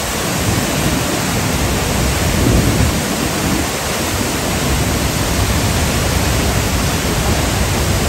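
Steady rush of a large waterfall crashing into its plunge pool, heard up close.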